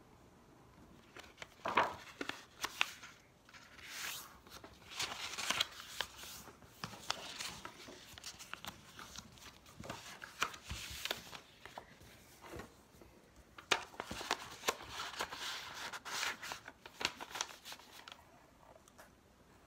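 Paper rustling and crinkling in irregular bursts as a sheet of paper is folded and creased by hand and handled into an envelope.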